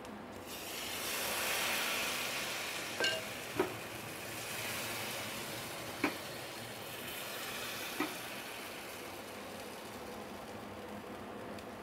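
Thin egg-and-flour batter sizzling in a hot, lightly oiled non-stick pan as a ladleful is poured and spread round. The sizzle is loudest a second or two in, then settles to a steady hiss, with a few sharp clicks along the way.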